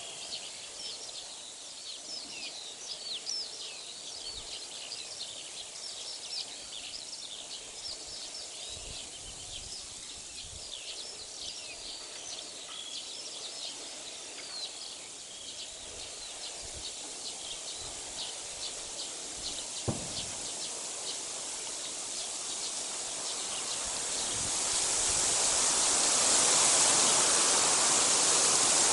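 Small songbirds chirping and singing in the background, many short high calls overlapping. A single click comes about 20 seconds in. From about 23 seconds in, a steady rushing hiss swells up and drowns out the birds.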